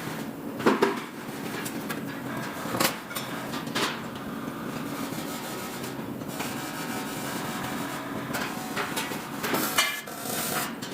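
Metalwork on aluminium parts: steady scraping and rubbing, broken by about four sharp knocks, the loudest about a second in.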